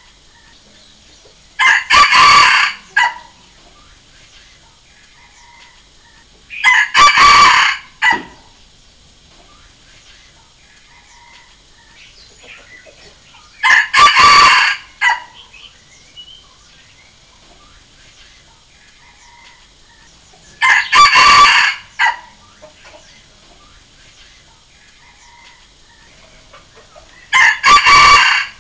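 Red junglefowl rooster crowing five times, about seven seconds apart: each a short, clipped crow followed by a brief extra note. It is a junglefowl decoy call, played to draw wild roosters into answering.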